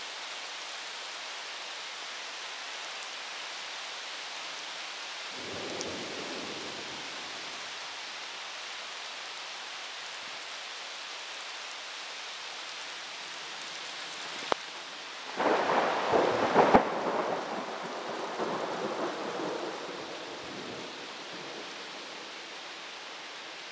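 Thunderstorm: steady rain hissing, with a soft roll of thunder about five seconds in. Later a sudden sharp crack is followed by loud thunder that rumbles for about five seconds and then fades back under the rain.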